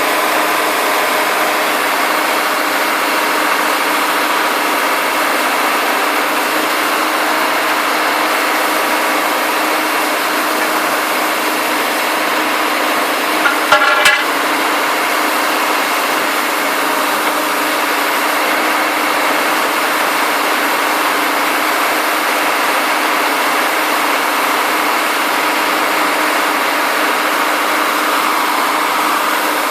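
Integrated DTH surface drill rig running, its diesel engine and machinery making a loud, steady noise. About halfway through comes a brief, louder, higher-pitched sound.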